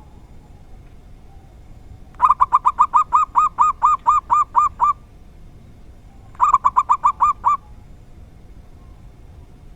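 Zebra dove (perkutut) calling in two runs of rapid staccato notes, about five a second: a long run of a dozen or more notes starting about two seconds in, then a shorter run of about seven notes.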